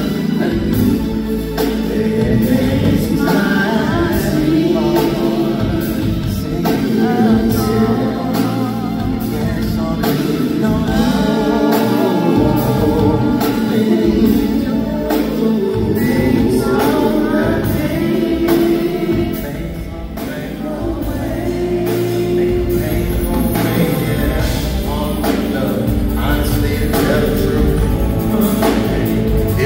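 Live soul/R&B band performance: a male lead vocal with wavering, vibrato-laden held notes over drums and keyboards, heard from the audience through the venue's PA.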